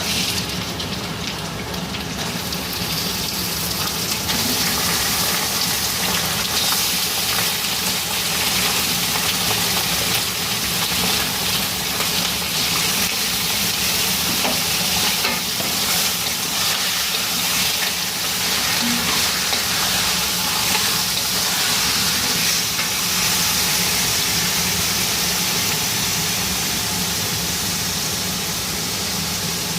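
Food sizzling and frying in hot oil in a pan, the sizzle swelling a few seconds in and then holding steady.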